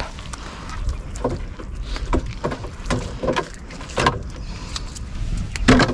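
Gill net being hauled by hand into a small fishing boat: short irregular knocks over a steady low rumble.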